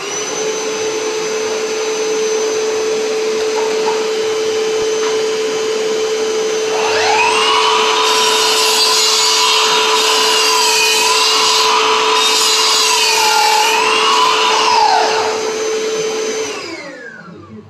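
A dust extractor hums steadily through the hose. About seven seconds in, a Milwaukee FMS254 10-inch cordless sliding miter saw spins up with a rising whine, and its pitch dips and wavers as the blade cuts through a piece of wood. Near the end the saw winds down and both stop.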